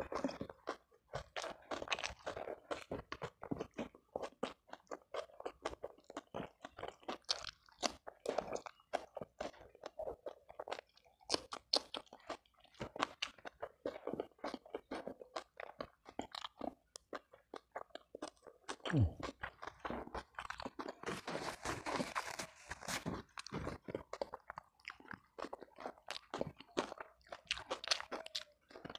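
A person chewing and crunching food close to the microphone, with many short wet mouth clicks and a louder stretch of crunching about two-thirds through.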